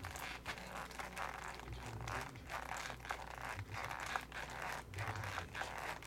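Faint crinkling and rustling of the foil jumbo packs shifting inside a sealed, shrink-wrapped Topps baseball card box as it is rocked by hand, a sound likened to a diaper.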